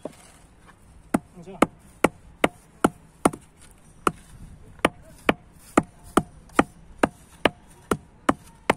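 Club hammer knocking on a wooden block laid on a BTS earth brick, about seventeen sharp knocks, two to three a second, with a short pause about three and a half seconds in. The taps bed the brick down into its mortar, level with the string line.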